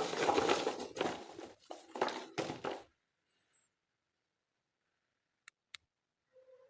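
Dense crinkling and rustling of toy packaging being handled for about three seconds, then two sharp clicks near the end.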